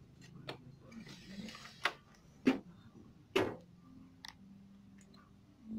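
Handling noise while working on an opened LED TV: about five sharp, irregularly spaced clicks and knocks, with a short rustle partway through.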